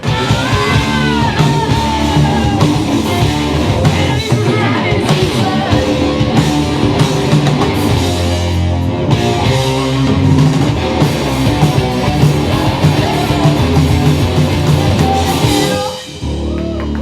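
Heavy rock recording: distorted electric guitars, bass and drum kit with a singing voice, loud and dense throughout. It breaks off about a second before the end, and a quieter passage follows.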